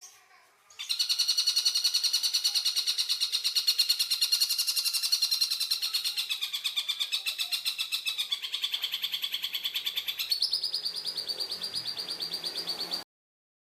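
Tengkek buto kingfisher song: a long, fast rattling trill of evenly repeated notes. It starts a little under a second in, drops slightly in pitch past the middle, rises again, and cuts off abruptly near the end.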